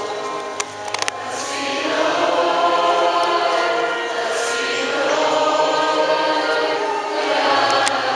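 A choir singing a hymn in long, sustained phrases, with a couple of faint clicks about a second in.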